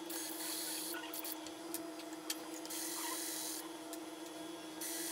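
Battery-powered surgical drill backing fixation pins out of a plastic saw-bone femur, running in three short spells over a steady hum.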